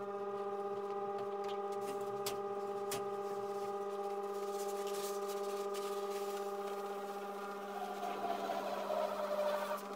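Homemade cymbal lathe's electric motor running with a crash cymbal spinning on it, a steady hum of several tones. Near the end a hand-held polishing pad is pressed against the spinning cymbal, adding a wavering rubbing sound.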